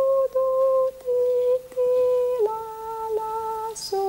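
A tune hummed in slow, even held notes, stepping down in pairs: do, do, ti, ti, la, la, so.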